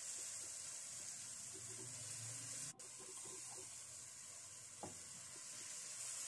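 Onion-tomato curry with gram-flour dumplings sizzling steadily in a metal kadai, with a little water just added to keep it from catching, as a spatula stirs it. A light tap of the spatula on the pan comes about three-quarters of the way through.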